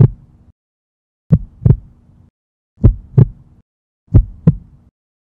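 Heartbeat sound effect: slow paired lub-dub thumps, a pair about every second and a half, with silence between them.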